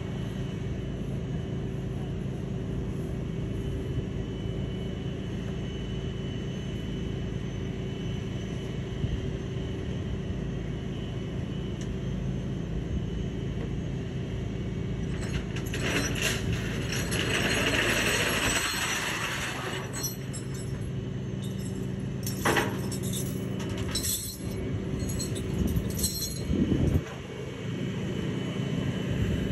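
Flatbed tow truck's engine running steadily while its tilting bed is set down for loading, with a hiss lasting a few seconds about halfway through and a few sharp clanks after it.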